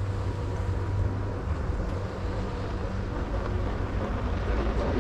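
Steady low wind rumble on the microphone from skiing downhill, with the hiss of skis gliding over packed, groomed snow.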